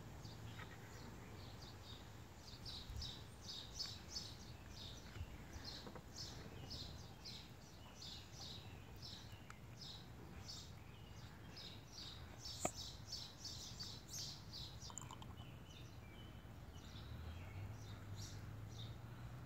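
Faint birdsong: birds chirping in quick repeated series over a low steady background hum, with a single sharp tap about two-thirds of the way through.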